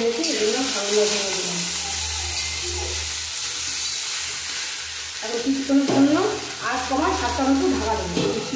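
Fresh fenugreek (methi) leaves sizzling in hot oil in a kadai, stirred and turned with a metal spatula.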